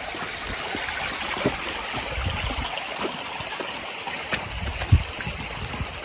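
A creek's water running steadily, with a few low bumps and one sharp thump about five seconds in.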